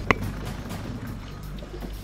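Background music over the low, steady hum of a fishing boat's engine, with one sharp click just after the start.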